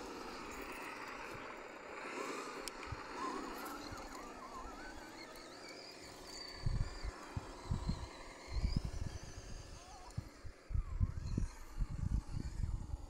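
Outdoor ambience with faint wildlife chirping. From about halfway through, irregular low gusts of wind buffet the microphone and are the loudest sound.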